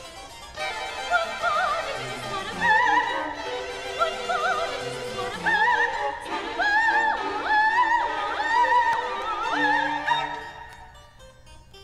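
Classical soprano singing with wide vibrato and quick ornamented turns, rising to held high notes, accompanied by a string quartet and harpsichord. The voice fades out near the end.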